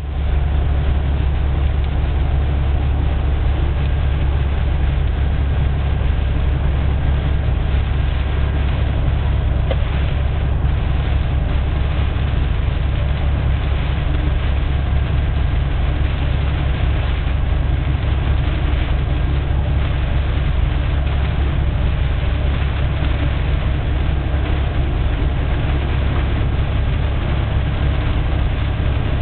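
Very heavy rain pouring down steadily, an even rushing noise with a deep rumble underneath.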